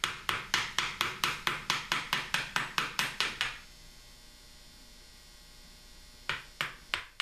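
Mallet tapping a hand chisel into a gunstock's wood: a run of quick, even taps about four a second for three and a half seconds, then a pause and three more taps near the end. The chisel is chipping out wood, piece by piece, up to a scribed outline to inlet a patchbox.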